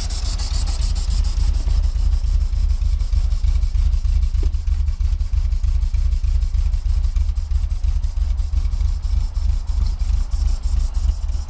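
The 1952 Fordson E83W pickup's four-cylinder sidevalve engine idling steadily, with the exhaust beat heard close to the tailpipe partway through. It has just been started after years laid up and is still running unevenly, trying to smooth out.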